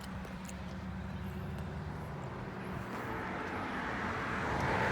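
A motor vehicle's steady drone that grows louder toward the end as it approaches.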